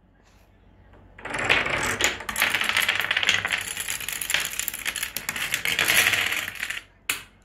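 Wooden dominoes toppling in a chain reaction: a rapid, continuous clatter of wooden blocks knocking into one another for about five and a half seconds, then a short last clatter near the end.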